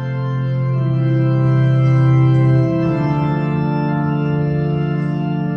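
Organ music playing sustained chords that swell in and change to a new chord about two and a half seconds in.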